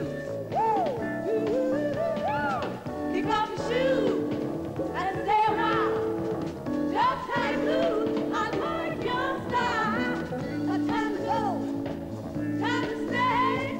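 A woman singing lead into a microphone over a band accompaniment. Her voice slides and bends between notes above steady held chords.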